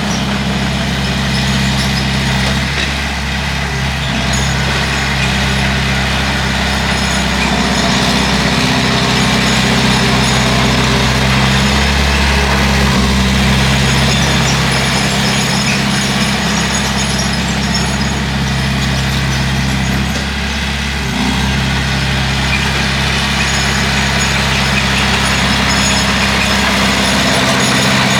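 Bulldozer's diesel engine running steadily under work, its note dipping and rising slightly a few times.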